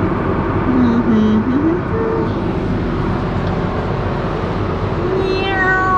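John Deere 8370R tractor pulling a grain cart, its engine running steadily as heard from inside the cab, with a couple of short vocal sounds about a second in and again near the end.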